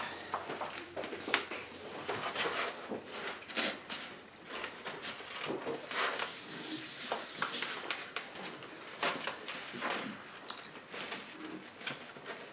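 People eating burgers at a table: irregular small clicks, rustles and mouth sounds of chewing, with the odd clink of dishes.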